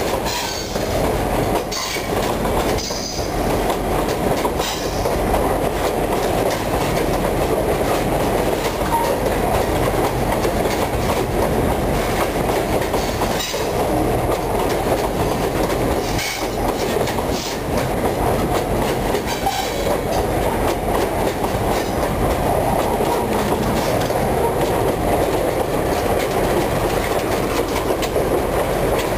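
Empty freight wagons (mineral hopper cars and boxcars) rolling past at very close range: a steady rumble of steel wheels with clickety-clack over the rail joints and a few brief wheel squeals.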